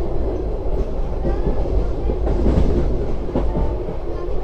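Passenger train running along the track: a steady rumble with the wheels clicking over the rail joints.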